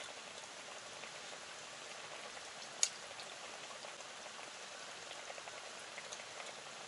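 Faint steady pattering and crackling with scattered light ticks, and one sharp clink of an eating utensil against a metal bowl about three seconds in.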